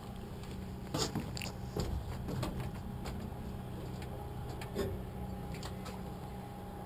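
Footsteps and a few scattered knocks on wooden dock planks, over a steady low hum.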